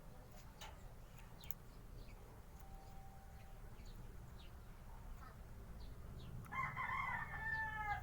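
A rooster crowing once near the end, a call of about a second and a half that falls in pitch as it ends, with faint scattered clicks.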